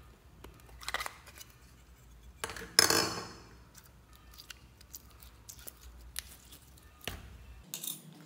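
Clicks and clacks of a hard plastic slime container being opened and handled, the loudest a sharp clack about three seconds in, with softer clicks around it.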